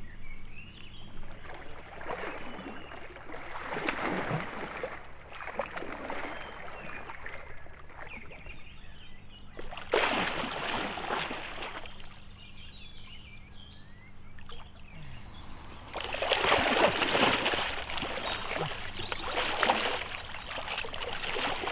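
Water splashing and churning in three surges, the sharpest about ten seconds in and the longest near the end, as a hooked wels catfish thrashes at the surface during the fight. Small birds chirp faintly between the splashes.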